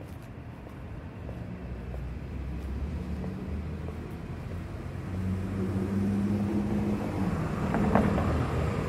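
Road traffic: a motor vehicle's engine hum grows steadily louder as it approaches, with a car driving past near the end.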